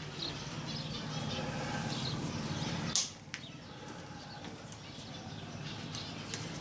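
Rustling and scraping of wiring being pushed through a motorcycle fairing, over a low steady hum that stops with a sharp click about three seconds in.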